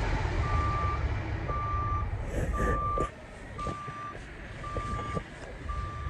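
Vehicle backup alarm beeping, one steady high tone about once a second, over a low engine rumble that drops away about three seconds in. A few light clicks follow.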